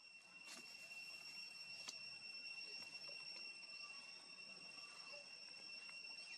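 Near silence, with a faint steady high-pitched whine and a couple of soft ticks.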